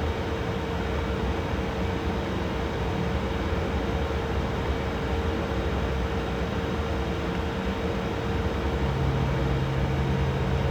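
Steady whir of running fans with a constant hum; a second, lower hum sets in about nine seconds in.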